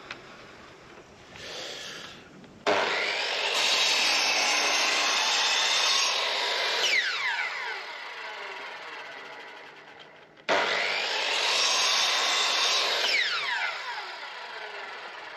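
Electric mitre saw cutting old recycled timber boards, twice: each time the motor starts suddenly, runs loud through the cut for a few seconds, then winds down with a falling whine.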